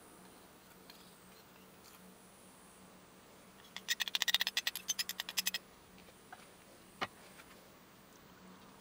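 Liquid poured from above into a glass beaker, heard as a quick run of crackling ticks lasting under two seconds, followed by a single light knock. A faint steady hum runs underneath.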